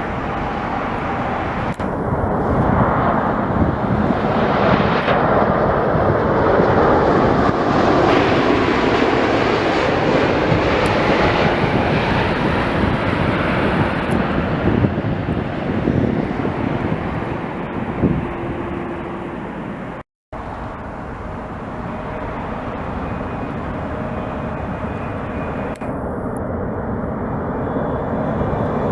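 Jet airliner passing, its engine noise swelling over several seconds and then fading. After a brief dropout about two-thirds of the way through, a steady jet rumble builds again near the end.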